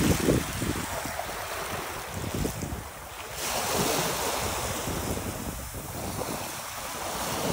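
Small waves lapping and washing up onto a sandy beach, with wind buffeting the microphone.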